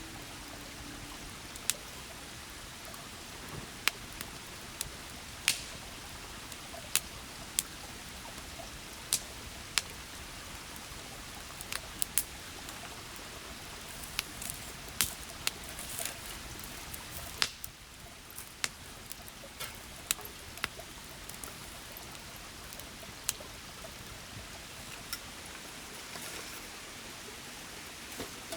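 River running with a steady rushing murmur, with scattered sharp clicks, about one or two a second, over it.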